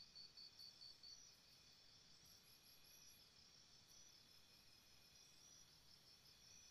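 Faint insects chirring: a high chirp pulsing about five times a second stops about a second in, leaving a steady high chirring of insects.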